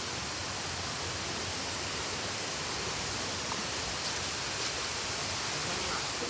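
A steady, even hiss of falling water.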